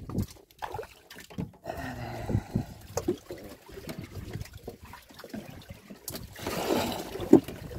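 Water lapping and splashing against the hull of a small fishing boat at sea, with scattered knocks. A louder rushing wash comes about six seconds in, and a sharp knock near the end.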